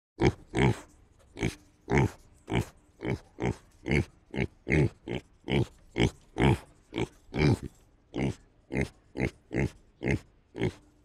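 Pig grunts repeating in a steady, even rhythm, about two to three a second.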